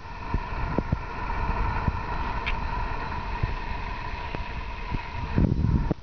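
Steady mechanical hum with a low rumble and a constant tone, growing louder and rougher about five and a half seconds in.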